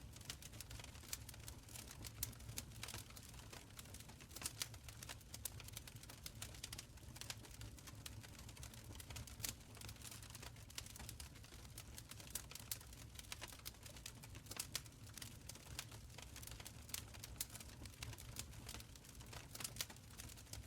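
Wood fire in a stone fireplace crackling: irregular sharp pops and snaps scattered throughout over a steady low rumble of the burning.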